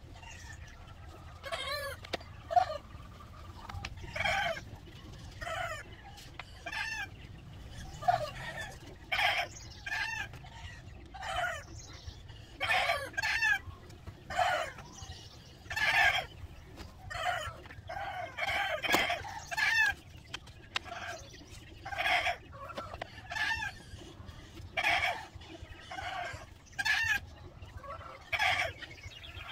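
Chickens clucking and calling over and over, short pitched calls coming roughly once a second, a few drawn out longer.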